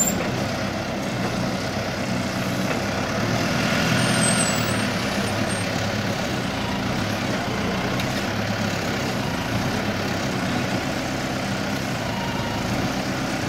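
Caterpillar TH63 telehandler's diesel engine running steadily as the machine lifts a pallet out of a shipping container, growing a little louder about four seconds in.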